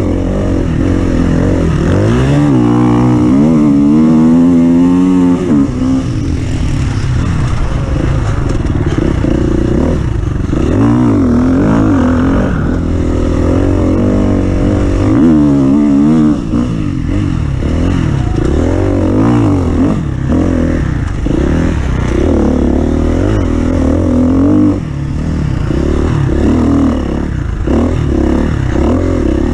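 Engine of an offroad vehicle revving up and down over and over, its pitch climbing and dropping every second or two, with some clattering.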